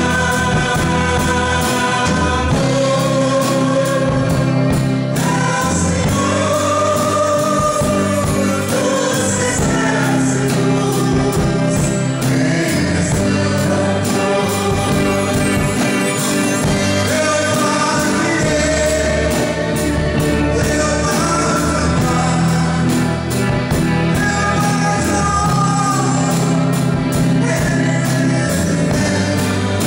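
Live church band playing a worship song: voices singing held notes over electric guitar, keyboard and drum kit, with cymbals keeping a steady beat.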